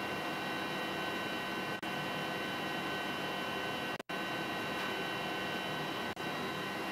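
Steady hum and hiss of spacecraft cabin ventilation fans and equipment, with several steady tones running through it. The sound cuts out for an instant three times.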